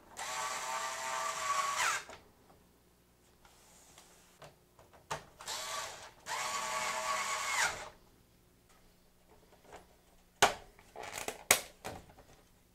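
Cordless electric screwdriver backing screws out of an LCD monitor's plastic back cover: two runs of about two seconds each, the motor whine dropping in pitch as each run stops. Near the end, a few sharp knocks and clicks as the loosened plastic cover is handled.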